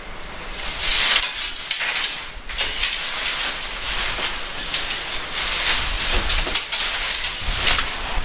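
Tent rainfly fabric rustling and swishing in irregular bursts as it is pulled and handled over the tent.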